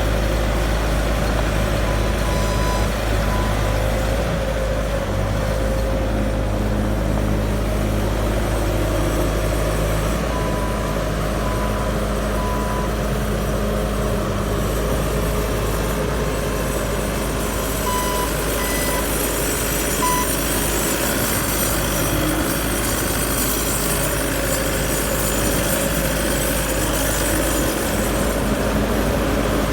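Bobcat A770 skid-steer loader's turbo diesel engine running steadily, with short beeps from its backup alarm now and then.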